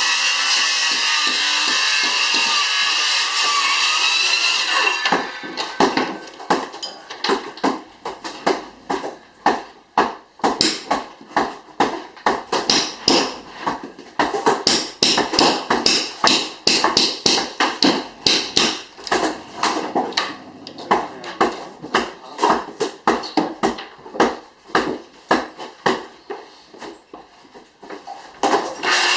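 A power tool runs steadily for about five seconds and stops, then a hammer strikes wood over and over in demolition, roughly two blows a second, irregular.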